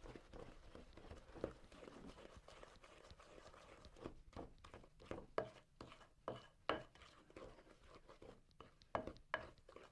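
A mixing spoon creaming butter, sugar and eggs by hand in a bowl: faint, irregular scraping and knocking strokes that come quicker and sharper after about four seconds.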